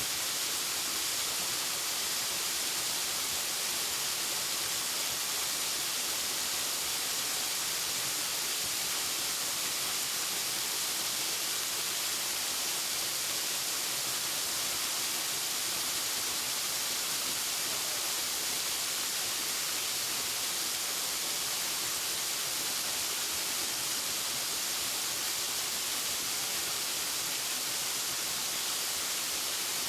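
Waterfall: the steady, even rush of falling water, a hiss with no breaks or changes.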